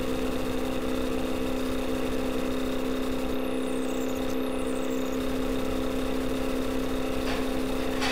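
A steady machine-like hum with a constant drone, and a few faint falling high whistles about halfway through.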